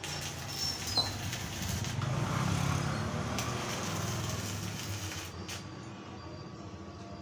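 Electric arc (stick) welding on a steel gate: the electrode's arc crackling and sizzling with sharp pops, stopping about five seconds in. A passing vehicle's engine rises and fades in the background near the middle.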